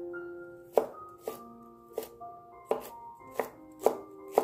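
Chinese cleaver chopping garlic cloves on a wooden cutting board: about seven sharp knocks of the blade against the board, starting about a second in and coming roughly every half second, over soft background music.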